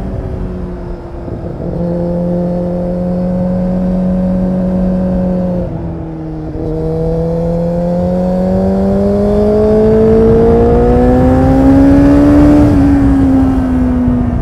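Kawasaki Z800's inline-four engine through an Akrapovič exhaust while riding, with wind noise underneath. It holds steady revs at first, dips briefly about six seconds in, then pulls with a rising pitch for about six seconds before easing off slightly near the end.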